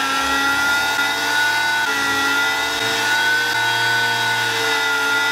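Small handheld rotary tool running with a pointed engraving bit, cutting letters into a hard plastic tool housing. It gives a steady high-speed whine whose pitch sags slightly and recovers every second or two as the bit bites into the plastic.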